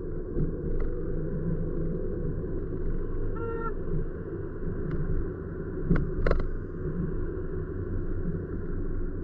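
Steady low rumble of a car's engine and tyres driving on city streets, heard from inside the cabin. A brief pitched tone sounds about three and a half seconds in, and two sharp clicks follow about two seconds later.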